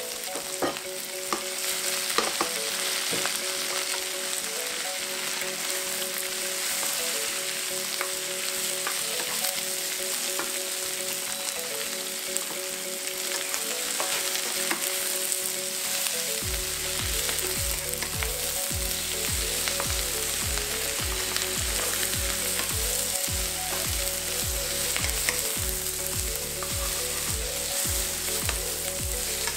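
Sliced peppers, broccoli, snow peas and mushrooms stir-frying in oil in a wok: a steady sizzle, with a wooden spatula scraping and tapping against the pan. Soft background music runs underneath, with a bass line coming in about halfway.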